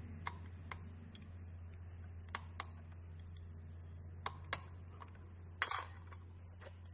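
Steel hex key clinking against the bolts of a hydraulic control valve block as the bolts are turned by hand, in pairs of sharp clicks, then a louder metallic clatter of tools with a brief ring about five and a half seconds in. A steady low hum lies underneath.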